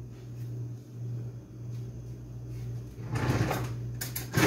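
Kitchen handling noise over a steady low hum: a short scraping rustle about three seconds in, then a sharper, louder clatter near the end as kitchen items are moved on the counter.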